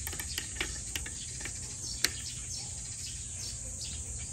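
Light metallic clicks and taps of a hex key working the mounting bolts of a Shimano Ultegra direct-mount brake caliper, loosening it for removal, with one sharper click about two seconds in. A steady high hiss runs underneath.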